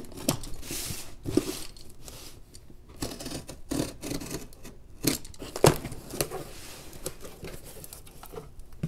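Box cutter slicing the packing tape along the seams of a cardboard mailing box, with irregular scraping, tearing and short knocks as the cardboard is handled and turned.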